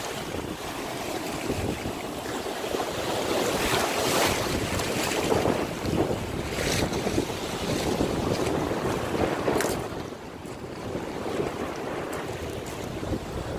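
Shallow Gulf surf washing in over sand and shells at the water's edge, with wind buffeting the microphone. The rush swells and eases with each wash, dropping back somewhat near the end.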